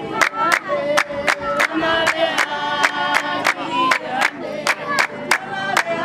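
Basarwa (San) women singing together in a dance song, with sharp, steady hand claps keeping the beat at about four claps a second.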